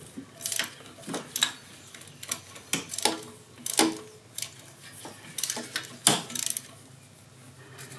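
Irregular metallic clicks and clinks of a wrench working the bolts of a golf cart's starter generator, tightening it against its bracket to set the drive belt tension.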